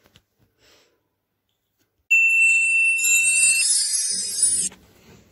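A short, bright, tinkling jingle sound effect, added over a title card, lasting about two and a half seconds and starting with a held high beep; it cuts off suddenly.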